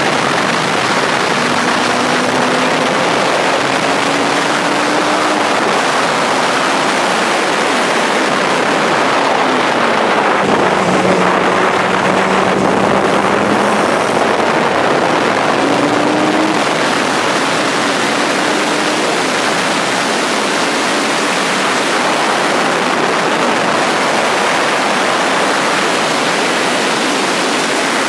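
Heavy wind rush over the microphone in the open cockpit of a Radical SR3 race car at speed. The engine's note lies faintly underneath, rising and falling with the throttle.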